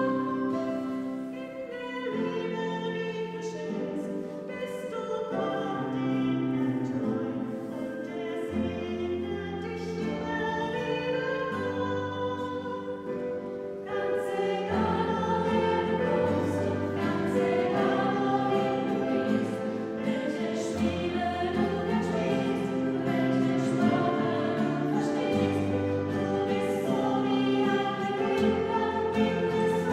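Choral music: singing voices in held notes over a sustained accompaniment, growing louder and fuller about halfway through.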